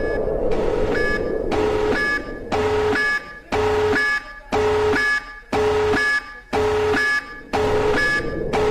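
Electronic alarm starting abruptly and sounding in loud, evenly repeated pulses about once a second, each a buzzy tone lasting most of a second.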